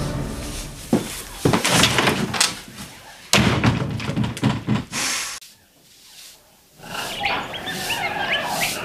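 A run of knocks and thuds, with a door slamming, over the first five seconds. After a short hush, birds chirp outdoors near the end.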